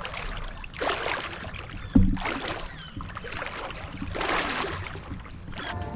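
Water swishing around a float tube in repeated swells, about one every second and a half, as the fins kick it along. There is a single sharp knock about two seconds in.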